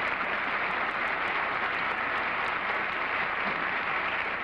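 Studio audience applauding steadily, a sustained even clapping that greets a correct guess.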